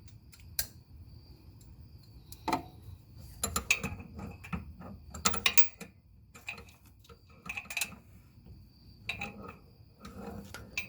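Socket ratchet clicking in short irregular bursts, with small metallic clinks, as a motor mount bolt is worked into the engine block against some resistance.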